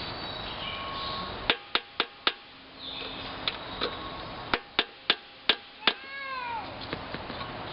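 Sharp taps on a Honda mower engine's flywheel, nine strikes in two quick groups, an attempt to shock loose a flywheel jammed on its crankshaft after the key sheared. A brief falling pitched sound follows the last tap.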